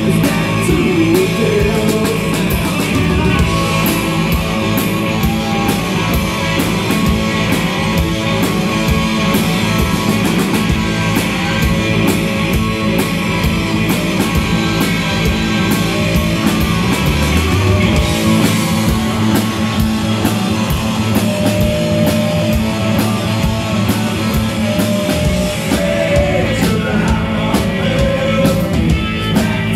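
Live rock band playing loud: distorted electric guitar, drums and bass, with a male singer. The lowest bass drops away for several seconds past the middle, then returns.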